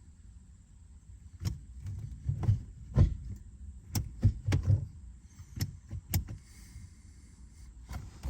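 Irregular series of sharp clicks and knocks, about a dozen, from hand work on a car's manual gear shifter while a shift knob and its jam nut are fitted and checked.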